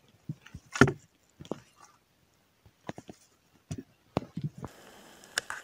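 Handling noise close to the microphone: scattered short rustles and small knocks as the angler moves among dry reed stems, the loudest about a second in. Near the end it gives way to a steady faint hiss.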